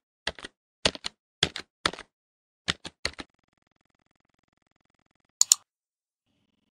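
Keyboard-typing sound effect: a run of about six quick double clicks, roughly two a second, stopping after about three seconds. About five and a half seconds in there is one brighter, sharper double click.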